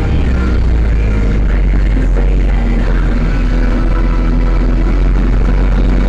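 Zetor 7011 tractor's four-cylinder diesel engine running steadily as the tractor drives along, heard from inside the cab. The engine is being warmed up to operating temperature ahead of an oil change.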